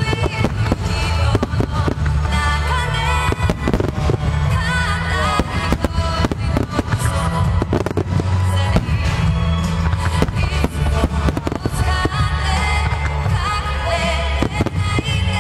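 Finale barrage of aerial fireworks: shell after shell going off in rapid succession, a dense run of bangs and crackle. Loud music plays throughout.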